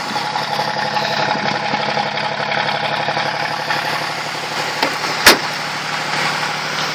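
1981 Chevrolet Malibu's 3.8-litre V6 idling steadily just after a cold start in sub-zero weather. A single sharp knock sounds about five seconds in.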